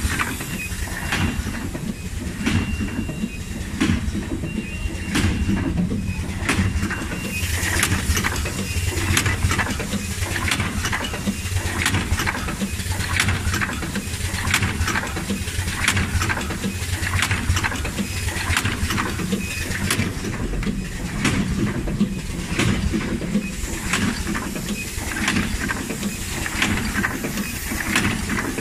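SKP-1N rotary coffee capsule filling and sealing machine running: a steady low hum under a regular cycle of clacks and air hisses, a little more than one a second.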